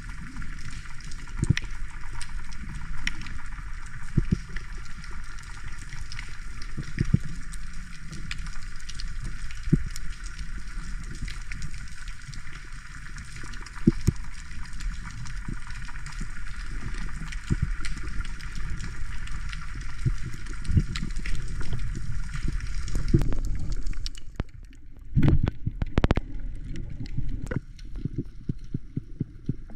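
Water sloshing and gurgling, with scattered sharp clicks and a few knocks, heard underwater or in the water during a freedive. The steady upper hiss stops abruptly about two-thirds of the way in.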